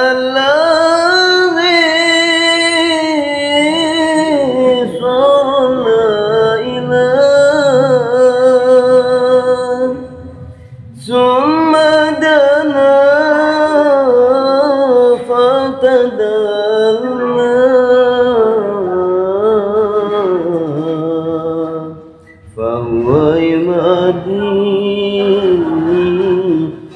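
A solo voice singing a sholawat (Islamic devotional song) in long, ornamented held notes, pausing for breath about ten seconds in and again near the end.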